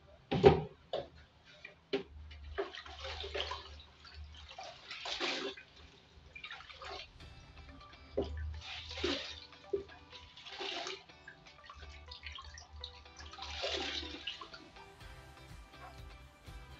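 Handling noises from a freestanding gas cooker being shifted and worked on: a sharp knock about half a second in, then scattered scraping and rustling bursts. Faint background music plays underneath.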